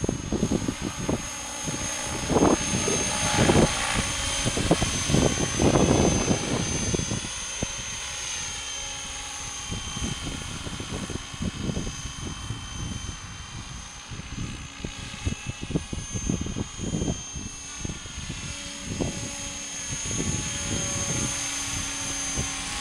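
Radio-controlled helicopter flying, its rotors and motor giving a steady high whine whose pitch dips and rises as it manoeuvres. Gusts of wind buffet the microphone, strongest in the first several seconds.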